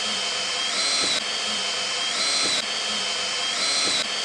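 Cordless drill-driver driving screws into plywood, its motor whining steadily. The pitch steps up briefly about every second and a half, with a faint click each time it drops back.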